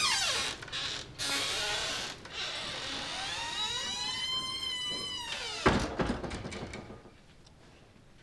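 Swing doors creaking on their hinges in long wavering pitched glides, then a single heavy thud about six seconds in that fades away.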